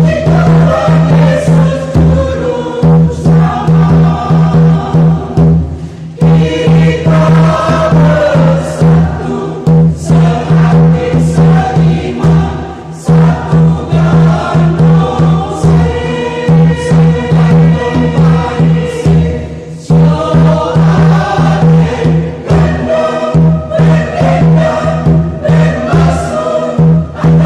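Mixed church choir singing a lively hymn over a steady, driving beat on a tifa hand drum, with short breaks between phrases.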